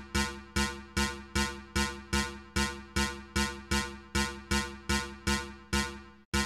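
Live-coded synthesizer note repeating at one pitch, about two and a half hits a second. Each hit starts sharply and fades before the next, and there is a brief gap near the end.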